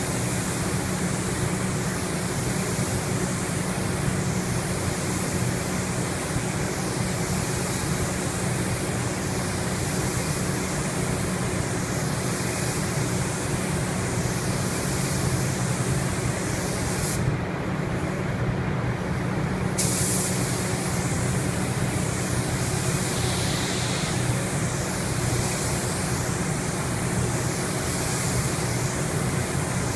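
Paint spray gun hissing steadily as it lays on the colour coat of automotive paint, over a steady low hum. The high hiss cuts out for about two and a half seconds a little past the middle, then resumes.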